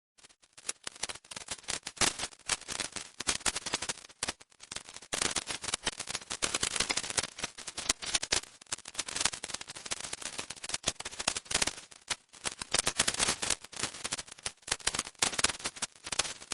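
"Electrified granules" sound effect: a dense, rapid electric crackling of many tiny clicks that swells and eases in waves, with brief breaks about four, eight and twelve seconds in.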